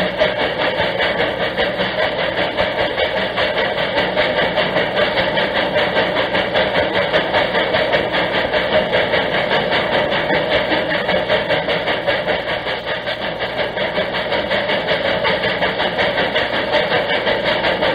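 The 1855 steam locomotive The General running, its exhaust chuffing in a steady, even, rapid rhythm, played from a record over an old radio broadcast.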